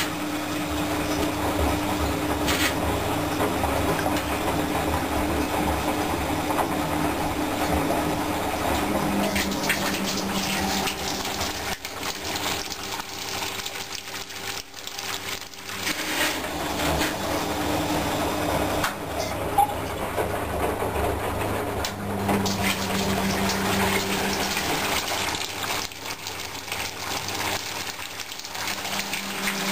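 Predom Polar Westa-85 washing machine pumping out: the drain pump hums and waste water gushes from the drain hose into a tub, the flow dipping for a few seconds midway.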